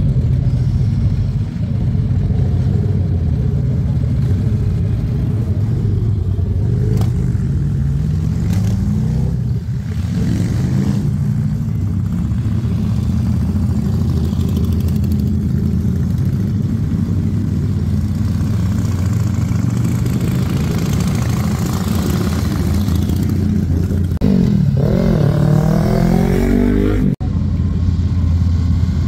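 Motorcycles riding past, engines running with a steady low drone and revving up as they accelerate away, with rising surges about a third of the way in and again near the end.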